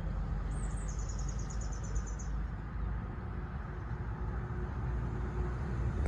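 A steady low rumble, with a small songbird's high, rapid trill of evenly spaced notes from about half a second in, lasting nearly two seconds.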